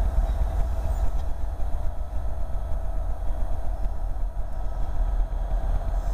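Diesel locomotive running as it approaches slowly, a deep rumble with a steady drone above it.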